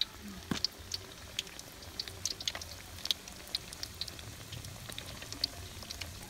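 Hot oil in a wok crackling, with scattered irregular pops and spits over a low steady hum.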